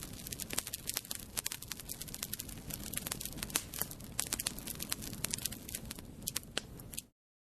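Fire crackling: dense, irregular pops and snaps over a low rumbling hiss, cutting off abruptly near the end.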